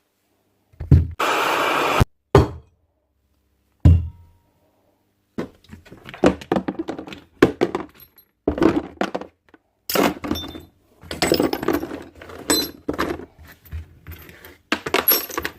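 Knocks and irregular clattering of a hand-held power tool being handled, with a steady noise lasting about a second near the start. Louder thunks fall about a second, two seconds and four seconds in.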